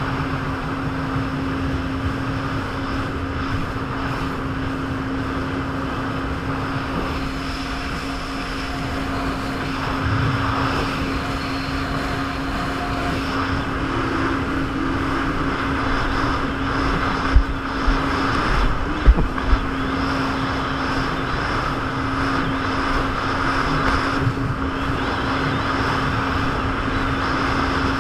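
Jet ski engine running steadily at speed, a constant droning tone under wind and water noise, with a few sharp thumps about two-thirds of the way through.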